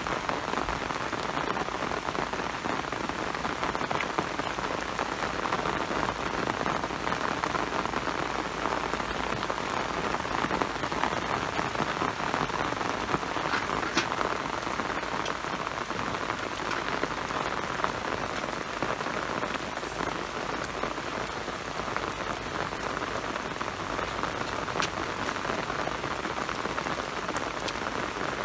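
Steady rain falling on wet ground and shallow muddy water: an even hiss with occasional sharper drop ticks.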